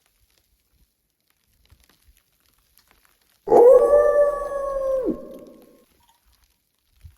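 A single wolf howl begins about three and a half seconds in. It rises quickly to a held, steady pitch for about a second and a half, then drops off sharply and leaves an echoing tail.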